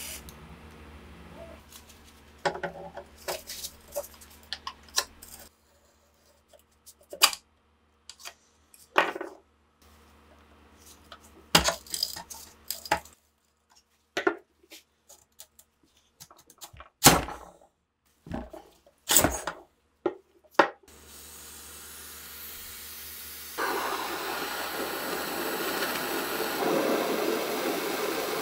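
Scattered sharp metallic clicks and clinks of rusty STEN Mk2 submachine-gun parts being handled and taken apart. Near the end comes a loud, steady hiss of an aerosol can spraying onto the rusty receiver.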